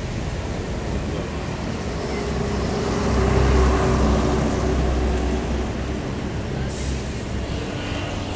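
Vintage Routemaster double-decker bus driving past close by, its diesel engine a deep rumble that swells about three seconds in and fades over steady street traffic. A short hiss follows near the end.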